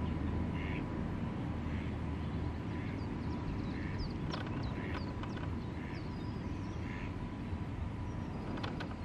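Repeated short bird calls, roughly one a second, with brief high chirps of small birds in the middle, over a steady low rumble.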